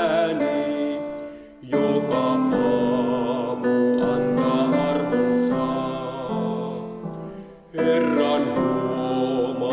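A man singing a hymn in a slow, wavering voice with vibrato, accompanied by a grand piano. The phrases break twice, near 2 s and near 8 s, in short gaps before the voice and piano come back in.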